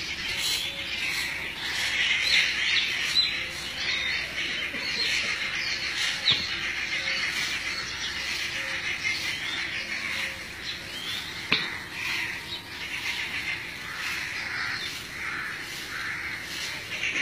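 Many birds chirping together in a steady, dense chorus, with one sharp click a little past the middle.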